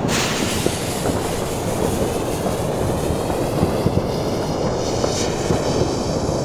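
Burning fuse of a Weco ball-head firework rocket, hissing and spitting sparks steadily at the launch stand before lift-off, over a low wind rumble on the microphone.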